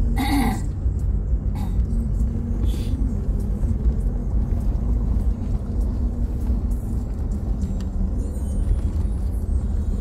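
Steady low rumble of engine and road noise inside a moving Toyota's cabin.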